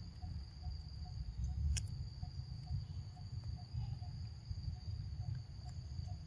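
Steady high-pitched drone of crickets or similar insects, with a faint regular chirp about three times a second and a low rumble underneath. A single sharp click about two seconds in.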